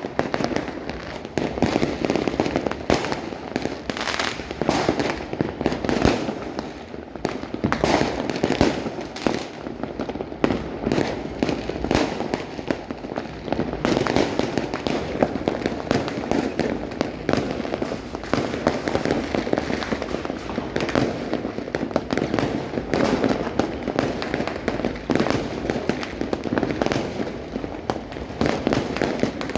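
Continuous barrage of fireworks and firecrackers: many overlapping bangs and crackling pops going off at once, with no pause.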